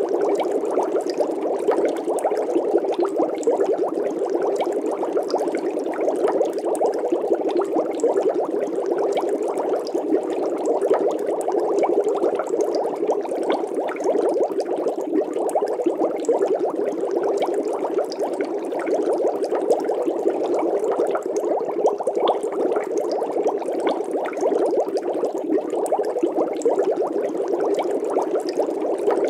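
Water bubbling steadily, a dense fine crackle with no break or change.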